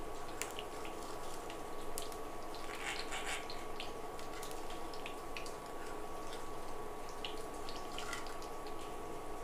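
Knife blade clicking and scraping against a steel plate while it cuts a soft gram-flour pancake into pieces: scattered light clicks, with a short scrape about three seconds in, over a steady background hum with a faint high tone.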